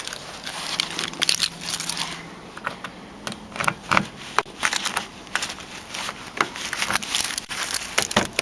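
Footsteps crunching through deep, fresh snow: a run of irregular crunches, several a second at times.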